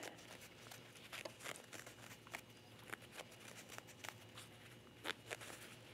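Faint rustling and small scratchy ticks of fabric being handled as basting threads are pulled to gather and ease a sleeve cap.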